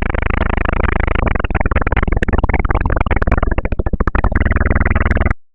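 Loud, harsh, distorted electronic noise with a rapid flicker running through it. It starts abruptly out of silence and cuts off suddenly after about five seconds.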